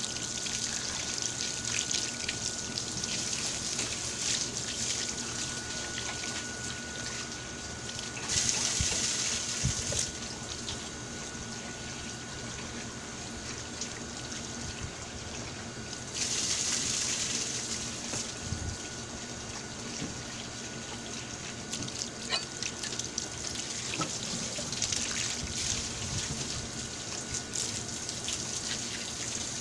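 Water from a garden hose running and splashing over fish being rinsed on a cutting board and into a basin. It gushes louder twice, about eight and sixteen seconds in.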